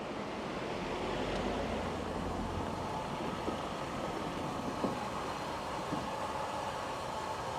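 Steam train at a heritage railway station: a steady rushing noise with a low rumble about a second in, and a few sharp knocks.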